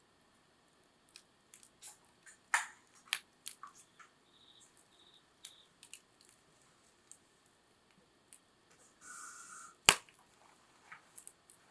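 Burning wood crackling: irregular sharp pops and snaps, the loudest a single pop about ten seconds in, just after a brief hiss.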